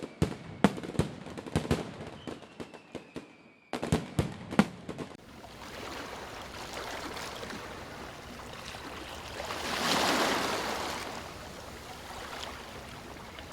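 Fireworks going off: a string of sharp, irregular pops and bangs for the first few seconds, with a faint falling whistle. Then a steady rushing, crackling noise swells about ten seconds in and fades.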